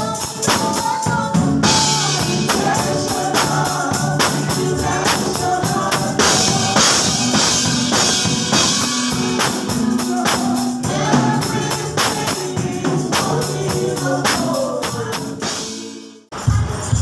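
Gospel praise music with singing over a steady beat of tambourine and drum kit. The sound drops out abruptly for a moment near the end, then the music resumes.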